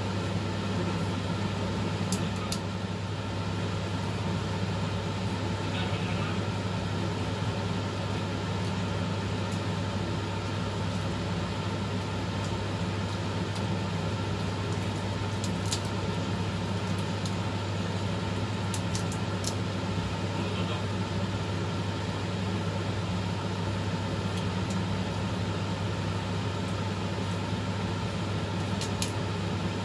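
Steady low machine hum, unchanging, with a few brief faint clicks as fried prawns are peeled and eaten by hand.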